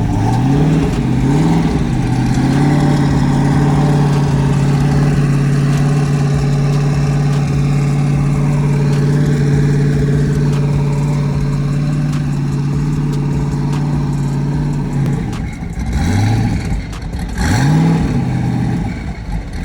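A sports car's engine is blipped twice, then held at steady raised revs for a long stretch, then blipped three more times near the end. This is typical of a driver slipping the clutch of a manual car to creep it along at low speed.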